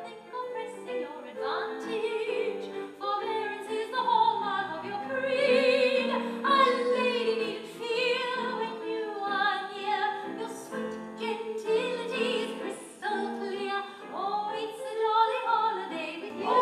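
A woman singing a show tune in a classical, operatic style with vibrato, over instrumental accompaniment.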